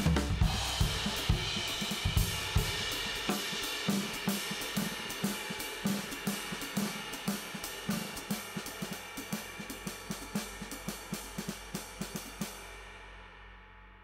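Drum-led music with cymbals, hi-hat and snare keeping a steady beat, fading out gradually, the cymbals dying away near the end.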